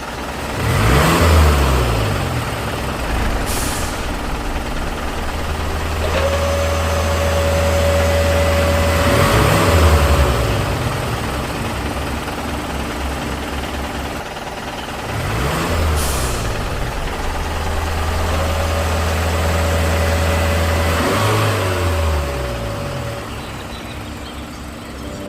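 A small motor running, its pitch sweeping up and down several times over a steady drone, with a thin whine held for a few seconds twice.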